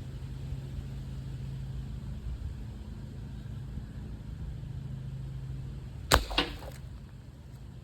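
A single shot from a Hatsan Flash QE .25-calibre PCP air rifle: a sharp crack about six seconds in, followed a fraction of a second later by a second, smaller knock as the pellet strikes the water-filled can.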